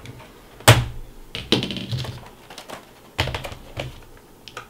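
Plastic clicks and knocks from a Toshiba Satellite C655 laptop being handled: one sharp knock under a second in, two more later, and lighter clicks between.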